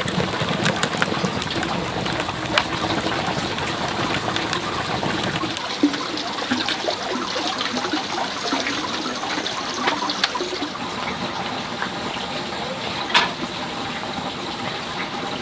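Running water, a steady splashing rush with scattered small clicks and knocks.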